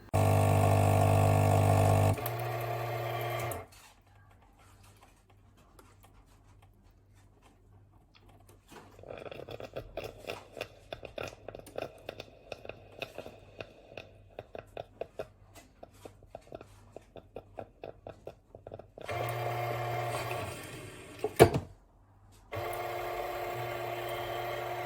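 DeLonghi Magnifica bean-to-cup coffee machine running through a cycle. A steady buzz lasts a few seconds, then after a short pause comes about ten seconds of rapid clicking and rattling. Near the end the buzzing returns, broken by a single sharp click.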